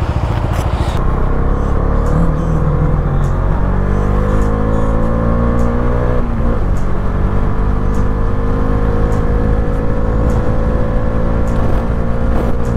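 Bajaj Dominar 400's single-cylinder engine pulling away and accelerating under way, its pitch climbing steadily, dipping at a gear change about six seconds in, then rising again.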